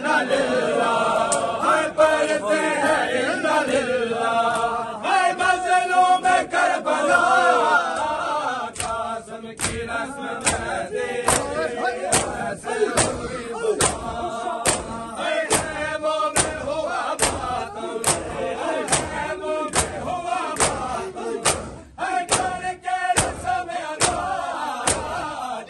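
A crowd of men chanting a noha in unison, with the open-hand chest slaps of matam keeping a steady beat, nearly two slaps a second. The chanting is strongest in the first third; after that the slaps stand out more.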